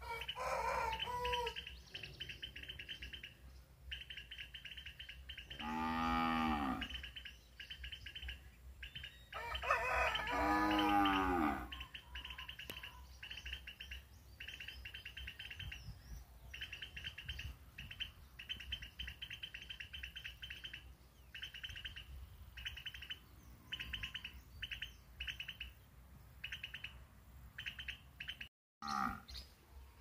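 A cow mooing twice: a call of about a second, then a longer one a few seconds later. High chirping comes in short repeated bursts all through.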